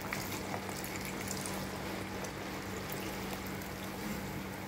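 Pomegranate juice poured from a glass into a pot of simmering chicken soup, a steady liquid splashing and trickling, over a steady low hum.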